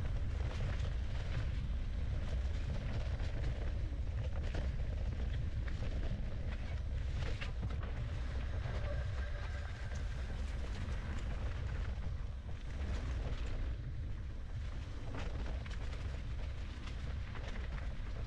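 Mountain bike ridden over a dirt singletrack: a steady low rumble of tyres and air on the microphone, with frequent sharp rattles and clicks as the bike jolts over bumps.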